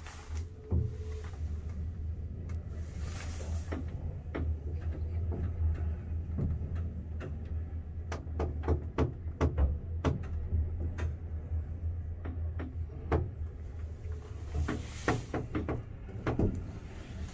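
Mid Western traction lift car (2003) travelling down between floors: a steady low hum from the moving car, with scattered clicks. The hum fades out about fourteen seconds in as the car slows to a stop, followed by a brief rush of noise and a few more clicks.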